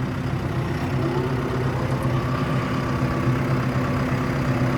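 Farm tractor engine running steadily as the tractor moves off, with a faint steady whine joining about a second in.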